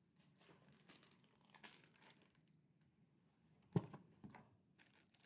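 Clear plastic bag of dog treats crinkling faintly as a hand handles it, with one sharper knock about three-quarters of the way through.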